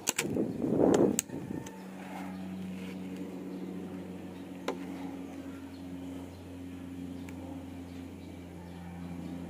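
A steady low machine hum holding a few fixed tones, after a short rushing burst about a second long at the start; a faint single click near the middle.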